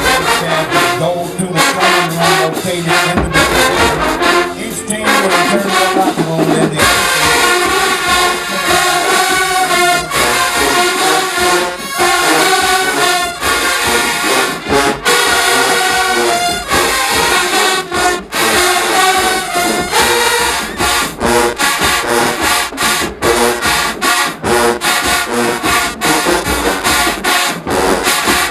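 Marching band playing, with trombones and trumpets carrying the tune over a steady drumbeat; the band comes in fuller about seven seconds in.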